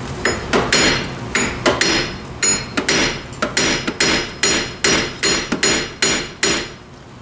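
Hammer blows on a seized, rusted wheel hub assembly of a 1997 Pontiac Grand Am, struck to knock it loose. There are about two to three ringing metal strikes a second, and they stop shortly before the end.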